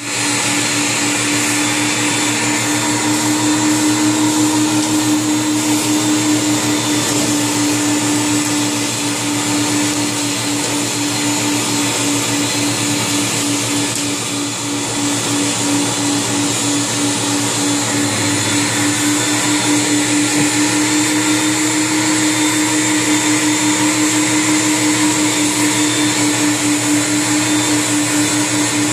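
Carpet-cleaning extractor's vacuum running steadily while its wand is drawn across carpet: a constant motor drone with a high whine over the hiss of suction.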